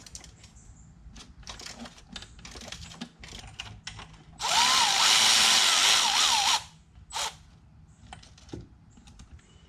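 A power tool on a 13 mm socket spins out the dipstick tube bolt in one burst of about two seconds, with a wavering whine, about four seconds in. Light clicks and taps of tool and socket against metal come before it.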